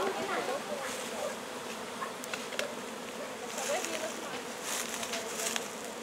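Swarm of wild bees buzzing around their opened nest, a steady drone with single bees flying close past, agitated by the honey harvest. A few sharp clicks run through it.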